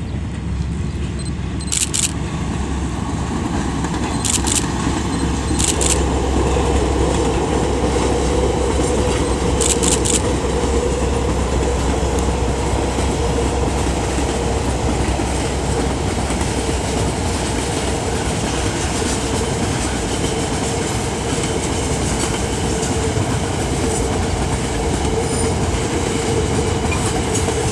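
Container freight train hauled by a KiwiRail DL class diesel-electric locomotive rolling past at close range: a steady, loud rumble of wheels on rail. A few sharp clicks sound in the first ten seconds, and a steady hum joins about six seconds in.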